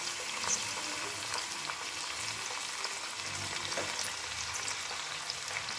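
Chopped raw onions and garlic sizzling steadily in hot oil in a metal karahi, early in the sauté. A plastic spatula stirs them, with small scrapes and ticks against the pan.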